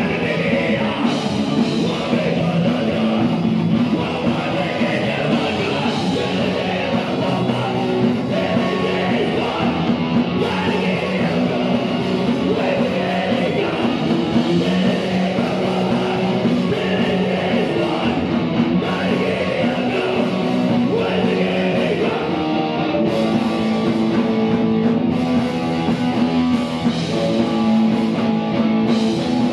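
A rock band playing live, loud and continuous, with a singer over guitar and drums.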